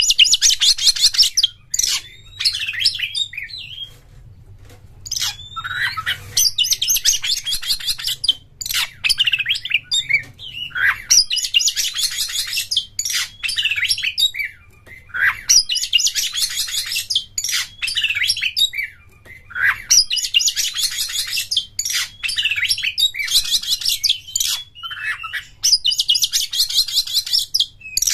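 Oriental magpie-robin singing loudly: short clear whistles alternate with fast, high, buzzy rattling phrases (the crackling 'konslet' style) about two seconds long, which come back every few seconds.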